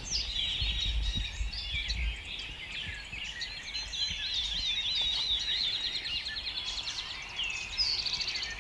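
Several songbirds singing at once, overlapping chirps, whistled glides and a fast trill, over a low rumble that is strongest in the first two seconds.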